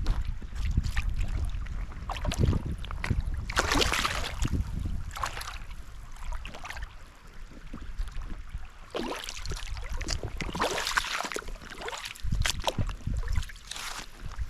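Water splashing in irregular bursts as feet wade through a river, over a steady low rumble of wind on the microphone.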